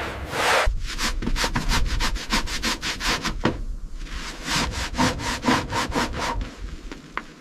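Rapid back-and-forth hand scrubbing or sanding strokes, about six a second, in two runs with a short pause between them, typical of cleaning rust off a surface.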